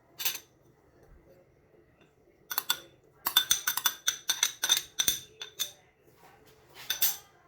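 Quick, irregular clinks and rattles of kitchen utensils: a short burst, then a dense run of sharp clicks, then one more short burst near the end.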